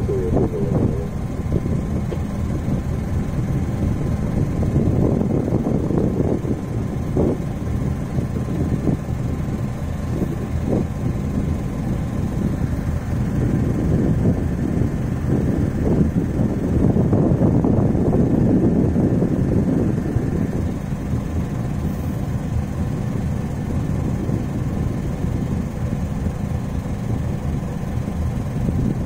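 Steady low engine rumble with a faint constant hum, rising and falling in waves as wind buffets the microphone.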